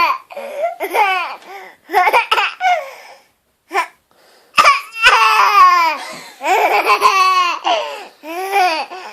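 A five-month-old baby laughing in a run of high-pitched vocal bursts that fall in pitch, with short gaps between them and the loudest ones about halfway through.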